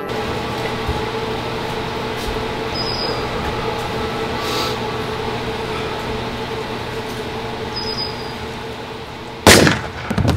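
A steady noisy drone with a faint low hum, then near the end a loud sharp bang from a handgun, quickly followed by a few more bangs.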